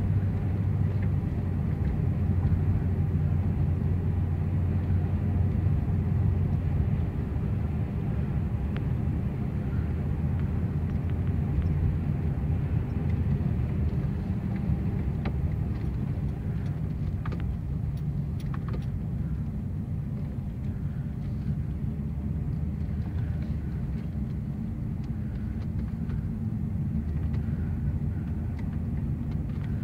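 A car driving, heard from inside the cabin: a steady low rumble of engine and road.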